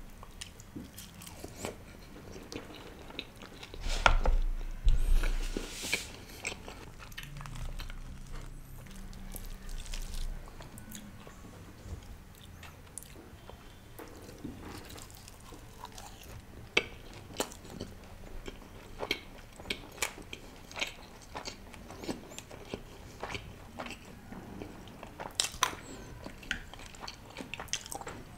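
Close-miked chewing and wet mouth sounds of a person eating naan, rice and curry, with scattered sharp clicks; louder for a couple of seconds about four seconds in.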